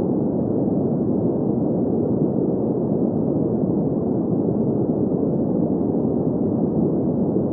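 Green noise: a steady, even, muffled rushing noise centred in the low-middle range with no highs, unchanging throughout.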